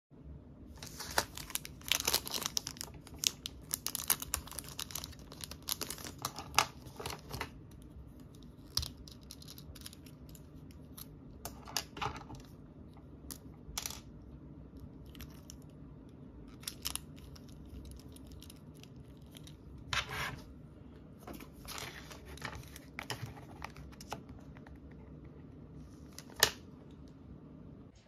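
Packaging crinkling and tearing for the first several seconds, then scattered light clicks and taps of plastic pen barrels and Pilot ballpoint refills being handled and fitted together.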